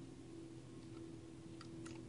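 Faint clicks of a fishing reel being cranked as line is reeled in, two of them close together near the end, over a steady low hum.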